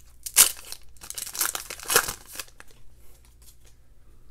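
Foil trading-card pack wrapper being torn open and crinkled, with sharp rips in the first two and a half seconds, the loudest about half a second and two seconds in, then faint rustling.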